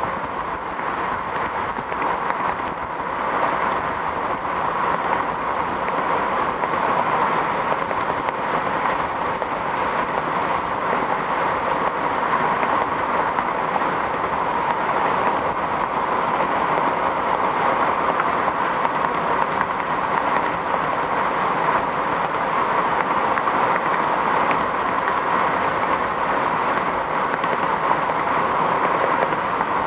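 Steady road noise of a moving car heard from inside: an even rush of tyres and wind with no changes.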